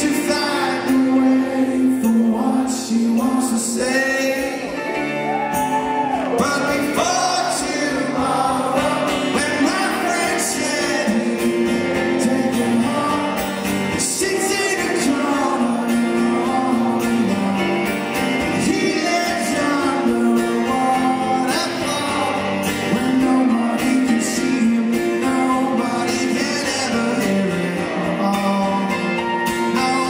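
Live male vocal singing with acoustic guitar accompaniment: a rock song performed in a stripped-down acoustic arrangement.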